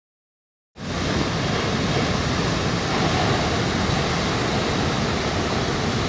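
A brief silence, then a steady, even rushing noise that starts about a second in, with no music or voice.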